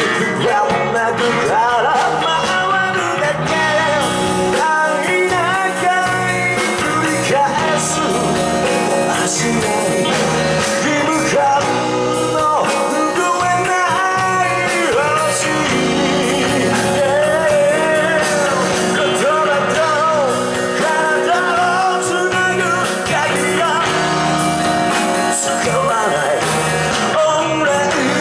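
Live rock and roll band playing a song: electric guitars, electric bass and drums, with a lead singer's vocals over them.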